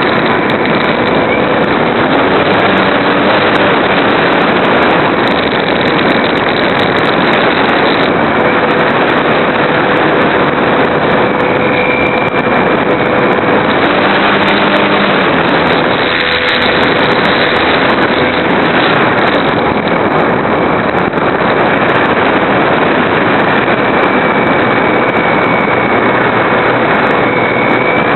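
Steady loud rush of wind and the motor and propeller of a radio-controlled Super Cub model airplane in flight, picked up by a small spy camera riding on the plane, with a faint steady whine over it.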